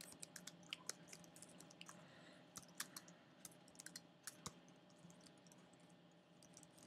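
Faint, irregular keystrokes on a computer keyboard as a command is typed out, with a few louder key presses scattered among them.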